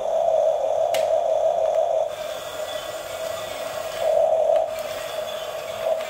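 Electric drive motors and gearbox of a toy RC bulldozer whining at a steady pitch. The whine is louder for the first two seconds and again briefly about four seconds in, while the bulldozer pushes a stack of boxes. There is a sharp click about a second in.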